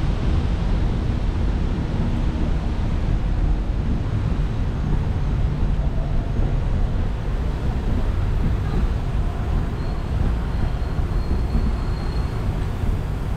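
Steady low rumble and hiss of a bicycle ride over stone paving, with wind buffeting the action-camera microphone.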